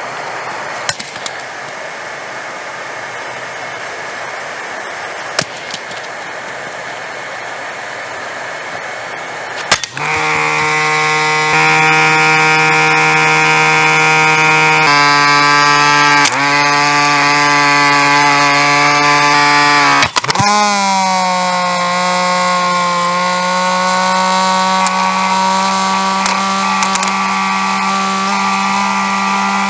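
Hair dryer running: a steady rushing of air with a few clicks, then about ten seconds in a loud motor whine with a steady pitch sets in. The pitch steps up and down several times and dips sharply about twenty seconds in before settling again.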